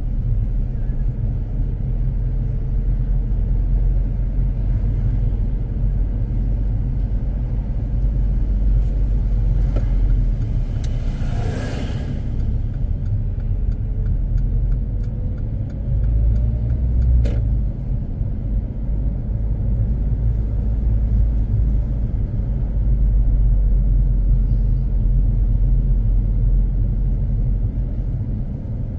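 Steady low rumble of a car driving along a city street. A brief swell of noise peaks about twelve seconds in, and there is a single sharp click about seventeen seconds in.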